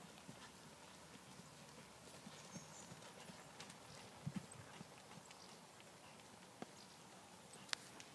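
Faint, muffled hoofbeats of a ridden mare cantering on a sand arena surface, with two louder soft thuds about halfway through and a few sharp clicks near the end.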